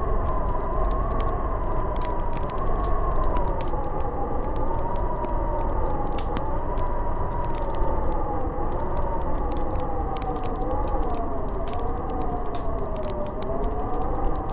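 Snowstorm wind howling: a wavering howl that slowly sinks in pitch over a deep rumbling gust noise. Scattered sharp ticks run throughout.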